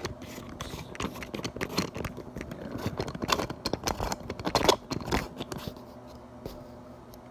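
Close handling noise of a camera being fitted onto a tripod: a run of clicks, knocks and scrapes right at the microphone, loudest about four to five seconds in, then settling to quiet room noise near the end.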